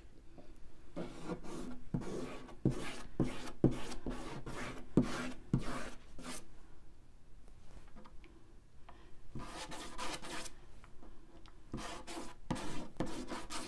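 Rubber spatula scraping and rubbing acrylic ink across paper in short, irregular strokes, with a quieter stretch around the middle.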